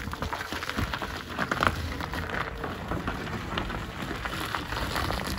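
Snow and ice crackling and crunching under the tyres of a battery-electric Hyster ACX 2.50 forklift as it drives and turns across a frozen yard. There is no engine sound.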